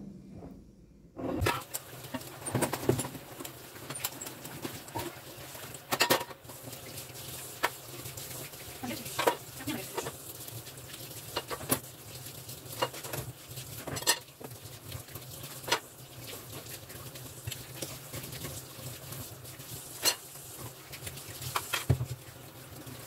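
Dishes and utensils being handled at a kitchen sink: irregular clinks and knocks over a steady hiss, starting about a second in.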